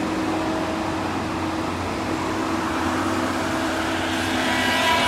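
Cat 573C feller buncher working, a steady machine drone with a few constant tones, growing a little louder and brighter near the end.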